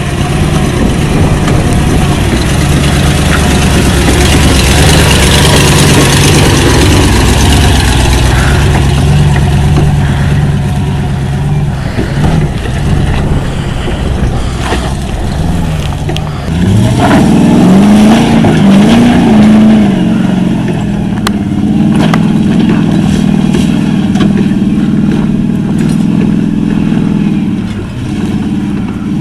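Land Rover Defender's engine pulling under load as it crawls up a rocky hill climb: steady revs at first, then revving up and wavering up and down a little after halfway, before holding a higher steady note.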